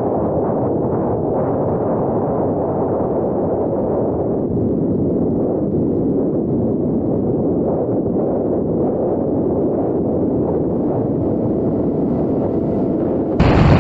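Muffled, steady rush of wind and propeller noise on board a Heewing Ranger T1 electric FPV plane in flight. Near the end the sound jumps abruptly louder and brighter.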